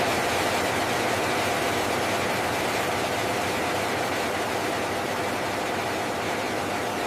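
Steady machinery noise, an even hiss and drone with a faint steady hum, holding at one level throughout.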